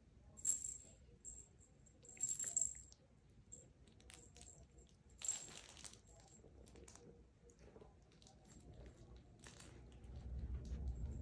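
Small metallic jingling as miniature poodle puppies tug and shake their toys: three short jingles, about half a second, two seconds and five seconds in, with light clicks between. A low rumble comes in near the end.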